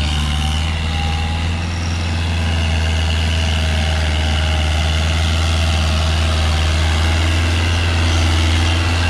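Kubota farm tractor's diesel engine running steadily as the tractor drives through mud, getting a little louder about two and a half seconds in as it comes closer.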